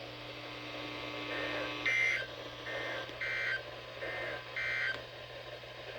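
Emergency Alert System end-of-message data bursts: three short digital tone bursts about 1.3 seconds apart, with fainter bursts between them, over a steady low hum.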